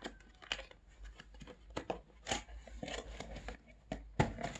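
Cardboard box lid being worked open by hand: scattered light taps, scrapes and rustles, with one sharper knock about four seconds in.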